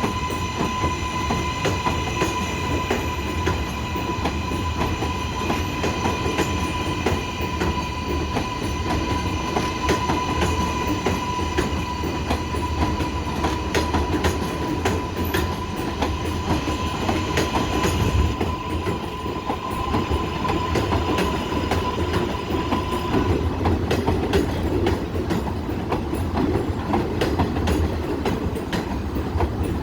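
R188 subway train running along the track: a steady rumble with rapid wheel clicks over the rail joints, and a steady high whine that stops about three-quarters of the way through.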